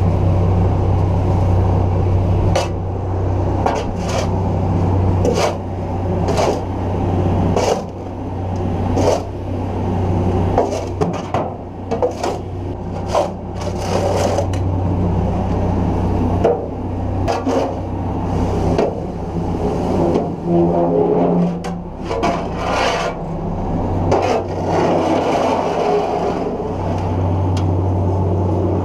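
A tractor engine running steadily, with irregular scraping and knocking over it that fades in and out through the middle.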